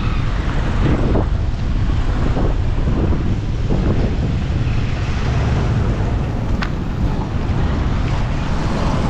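Wind buffeting the microphone in a steady low rumble, with road traffic running underneath.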